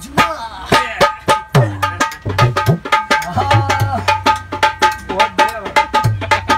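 A man singing a folk-style song and accompanying himself on a dholak, a rope-laced two-headed hand drum. He plays a fast, even rhythm of hand strokes, with deep bass strokes on the larger head now and then.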